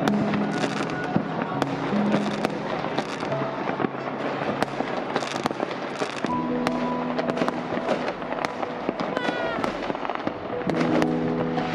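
Many fireworks going off across a city at once: a dense, continuous crackle of bangs and pops, with a rising whistle about nine seconds in. Music plays over them, its notes clearest near the start and again after about six and ten seconds.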